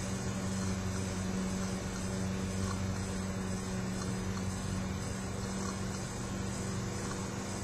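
A steady low hum over a broad hiss, unchanging in level and pitch.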